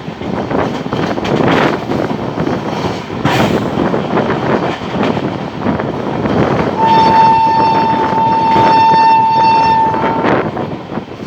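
Express passenger train running at speed, a steady rumble of wheels on rail with wind. About seven seconds in, the locomotive's horn sounds one long, steady single-note blast lasting about three and a half seconds.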